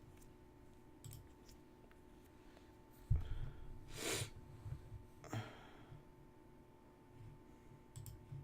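A few soft computer-mouse clicks and two short breaths into the microphone, about four and five seconds in, over a steady faint electrical hum.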